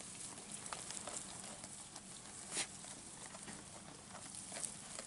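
Cameroon sheep feeding in dry hay: faint, irregular rustling and crunching as they pull at and chew the hay, with one louder crackle about two and a half seconds in.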